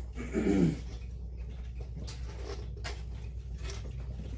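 Light clicks and taps of clock parts being handled and fitted on a workbench, over a steady low hum. A short vocal murmur near the start is the loudest sound.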